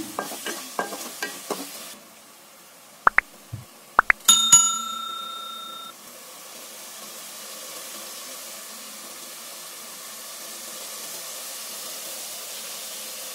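A spatula scrapes through thick masala paste in a pot for about two seconds. A few sharp clicks and a short metallic ring follow, then the masala sizzles steadily in the oil.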